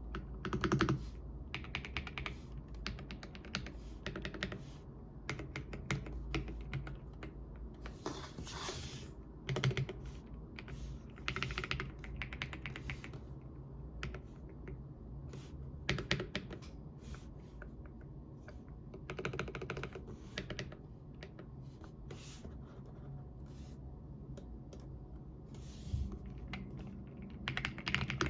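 Royal Kludge R65 mechanical keyboard being typed on: bursts of quick key clicks with short pauses between them.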